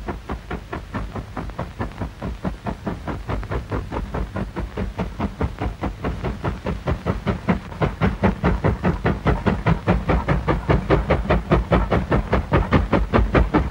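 Steam locomotive chuffing in an even, rapid rhythm of exhaust beats, growing louder as it comes closer, recorded on a 1935 stereo film soundtrack.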